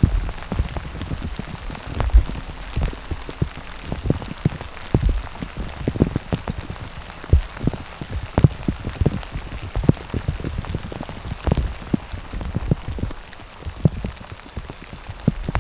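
Rain falling, with many irregular sharp drop taps striking close by over a steady patter.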